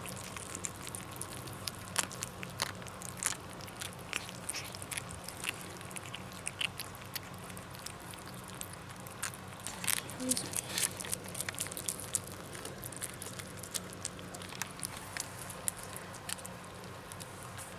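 Kittens eating wet cat food close to the microphone: irregular small clicks and smacks of chewing, with one kitten grinding his teeth as he eats.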